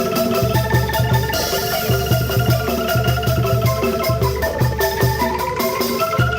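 Angklung ensemble playing a tune: shaken bamboo tubes rattling in quick, even strokes on changing pitched notes, over a repeating low bass.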